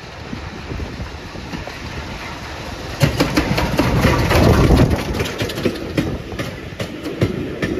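BR Standard Class 4 2-6-4 tank steam locomotive 80151 passing close by with its train. A rumble builds and jumps loud about three seconds in as the engine reaches the microphone. Then come the rhythmic clickety-clack of the coach wheels over the rail joints as the carriages roll past.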